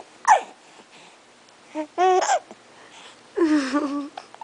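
A seven-week-old baby hiccuping: one sharp, brief hiccup about a third of a second in, followed by two short coos, one around two seconds in and a longer one near the end.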